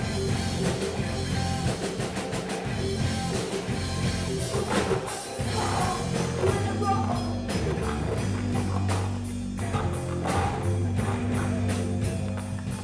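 Live rock band playing: electric guitar, bass guitar and drum kit driving a steady beat, with a woman singing lead into a microphone.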